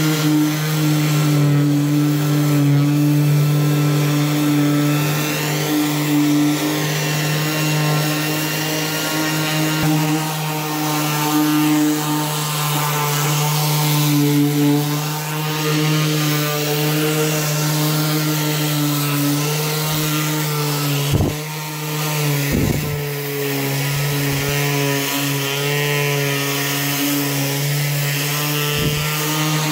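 Ryobi cordless random orbital sander running steadily against a fiberglass boat hull, sanding primer and fairing compound smooth: a constant motor hum under the hiss of the pad on the surface, with a few brief dips in the second half.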